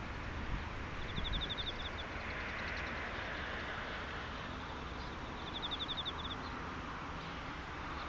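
Insects chirping: two short pulsed trills of about eight quick high chirps each, one about a second in and another about five seconds in, over a steady background hiss and rumble.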